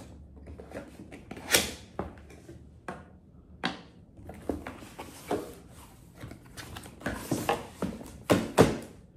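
A cardboard product box being opened and its packaging handled: scattered knocks, clicks and short rustling scrapes, with a sharp knock about one and a half seconds in and a cluster of louder ones near the end.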